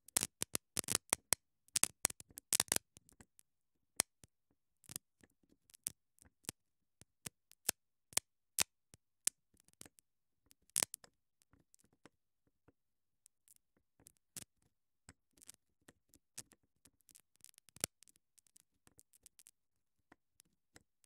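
Behringer XM8500 dynamic microphone with 48 V phantom power on, crackling and popping irregularly as its loose windscreen sparks against the body under a hand: a sign of phantom power reaching a loose or cross-threaded grille. The crackles come thick for the first few seconds, then scattered, with a lull midway.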